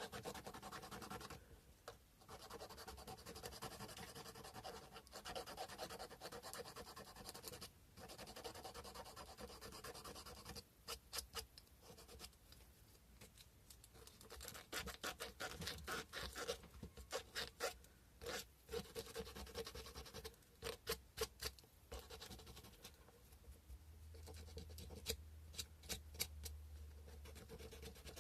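Sandpaper rubbed by hand over a carved cow-bone fish hook: a faint scratchy rasp in long passes, turning to quick short strokes about halfway through.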